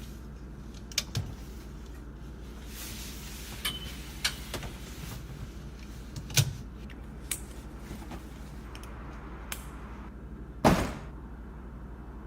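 Scattered light clicks and knocks over a low steady hum, with one louder thud about ten and a half seconds in.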